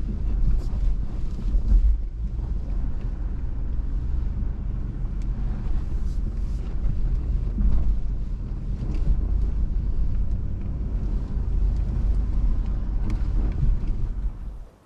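Off-road vehicle crawling over a rocky, sandy trail, heard from inside: a steady low rumble of engine and tyres with scattered knocks and rattles as it rolls over rocks. The sound cuts off suddenly just before the end.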